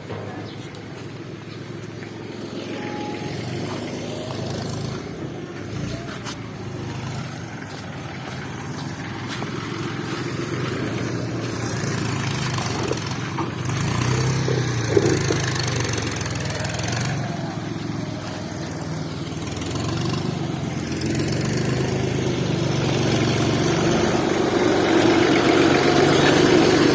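Engine of an arriving heavy vehicle running steadily and growing gradually louder as it comes closer.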